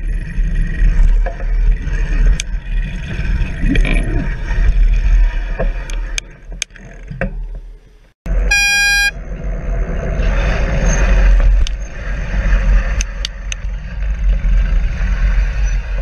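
Wind buffeting a bicycle-mounted camera's microphone, with road and traffic noise and scattered rattling clicks while riding. Just past halfway the sound drops out briefly, then a single short horn toot of about half a second.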